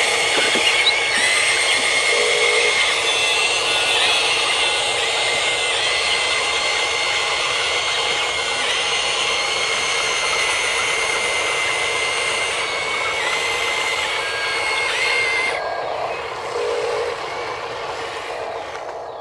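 Huina 580 RC excavator's electric motors and gearboxes whining steadily under a dense mechanical hiss. The higher whine drops away about three-quarters of the way through.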